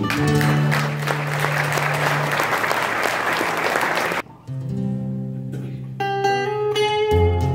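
Audience applauding as the last guitar chord of a fado song rings out. After a sudden short break about four seconds in, Portuguese guitar and classical guitar start an instrumental passage of plucked notes.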